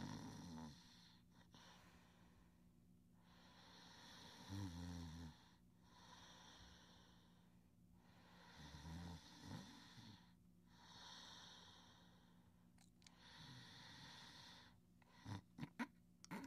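A sleeping cartoon child's soft snoring: a low snore roughly every four and a half seconds, with breathy hisses of breath in between. Near the end it breaks into a few short, sharp snorts.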